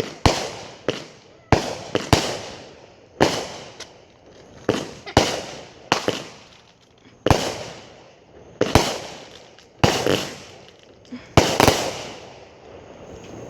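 200-gram consumer firework cakes firing: about a dozen sharp bangs spaced irregularly around a second apart, each trailing off briefly.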